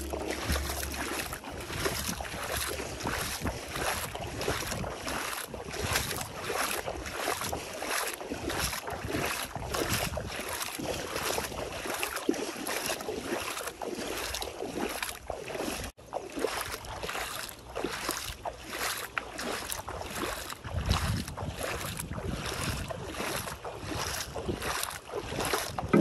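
Bare feet wading through shallow seawater, a splash and slosh with each step, about two steps a second.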